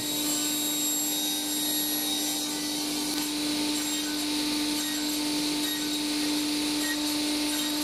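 Table saw running steadily, a constant hum over a noisy whir, while a plywood block is passed over the blade to hog out a slot.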